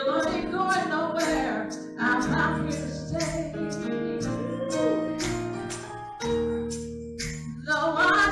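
A woman singing a gospel song over sustained instrumental chords, with a steady beat of percussion hits.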